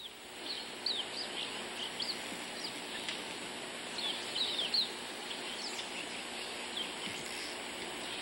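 Songbirds chirping: many short, high notes sliding downward, scattered irregularly over a steady outdoor hiss.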